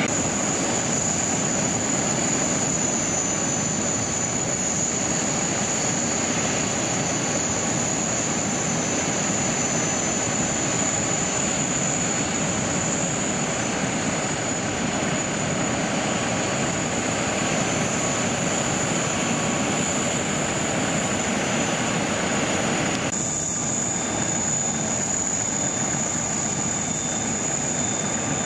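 Steady jet whine and rumble from an Airbus A380 on the apron as it is towed, with a thin high whistle over it. The higher hiss drops away suddenly near the end.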